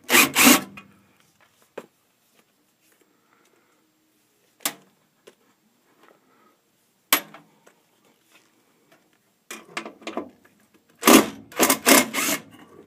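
Cordless drill-driver run in short bursts several times, the longest near the end, backing out the screws that hold a furnace inducer blower.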